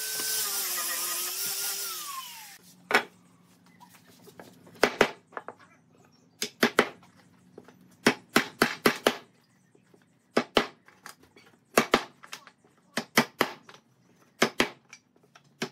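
Electric drill running, then winding down and stopping about two seconds in. Then a run of sharp knocks on wood, in quick clusters of two to four, about a second or so apart.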